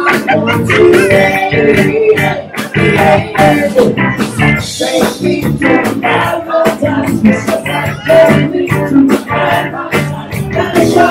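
A rock band playing with guitar to a steady drum beat, with a little singing.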